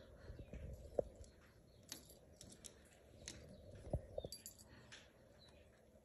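Quiet room tone with a few faint scattered clicks and soft taps, the clearest about a second in and twice near four seconds in.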